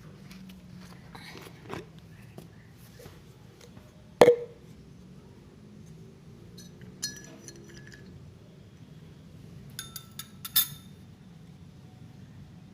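Spoon clinking against a glass of warm herbal water, a few separate ringing clinks. The loudest comes about four seconds in, with a quick cluster of clinks near the end.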